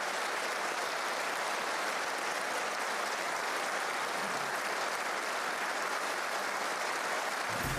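A large seated audience applauding steadily, with music beginning right at the end.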